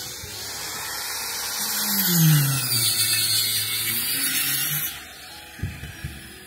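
A power tool whining at high pitch on the building site, its pitch wavering, stopping about five seconds in; then two sharp knocks about half a second apart.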